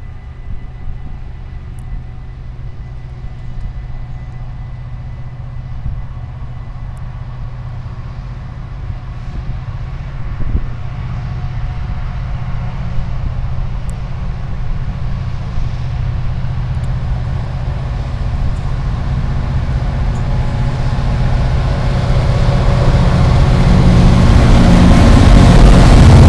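A Class 66 diesel-electric locomotive approaching under power, its EMD two-stroke V12 engine running steadily and growing louder until the locomotive passes close by near the end.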